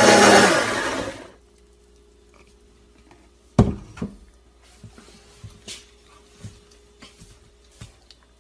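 Blender motor running, then winding down to a stop about a second in. Then one sharp knock followed by a string of light taps and clicks as a metal cup is handled.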